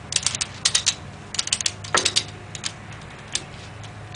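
Metal rigging hardware on a lifting strap and chain clicking and clinking as it is handled: short irregular runs of quick sharp clicks, with one heavier clunk about two seconds in and a last sharp click at the end.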